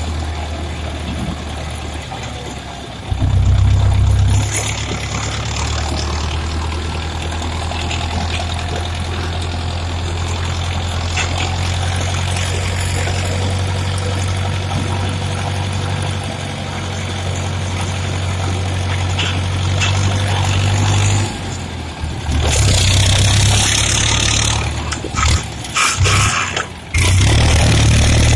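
Steyr 8073 tractor's diesel engine running steadily, louder for a moment about three seconds in. Near the end the sound cuts in and out a few times.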